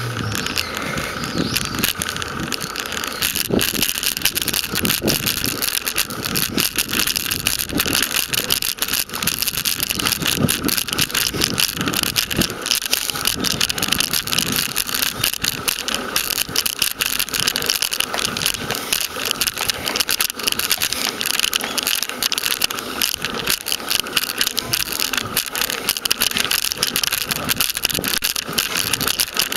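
Bicycle rattling and tyre noise on rough, ring-patterned concrete, picked up by a camera clipped to the bike, so every jolt comes through as dense, constant clicking.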